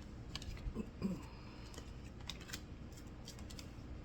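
Oracle cards being handled and laid out: a scatter of light clicks, snaps and rustles of card stock.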